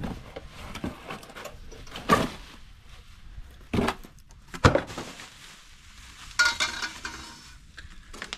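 Cardboard packaging and rack parts being handled while unpacking: rustling and scraping cardboard with a few sharp knocks and clatters.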